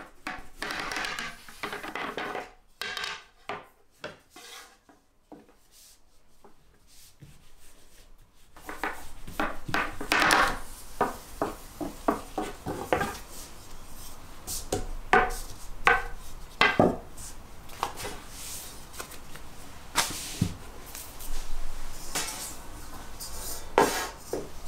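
Long thin wooden rolling pin (oklava) rolling and rubbing over floured phyllo dough, with repeated knocks of the wood on the table. Near the end there is a clink of a spoon against a round metal baking tray.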